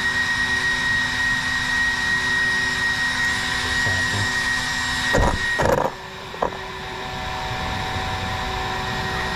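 Steady whir of a small electronics cooling fan with a thin high tone, from the RC truck sitting powered up but still. A few knocks and rustles about five to six seconds in, after which the whir is quieter.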